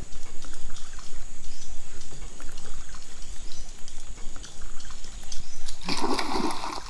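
Water splashing and trickling, with scattered small clicks and a louder burst of splashing about six seconds in.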